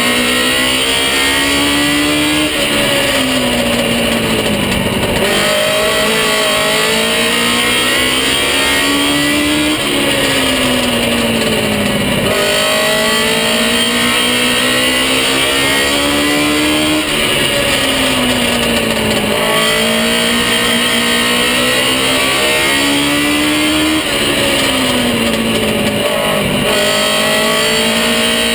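Baby Grand stock car's engine heard from inside the cockpit at racing speed. Its note falls off into each turn and climbs back along each straight, in a repeating cycle about every seven seconds.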